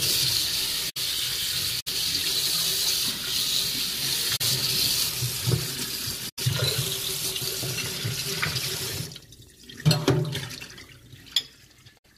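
Kitchen sink tap running, a steady stream of water that shuts off about nine seconds in, followed by a few light clicks and knocks.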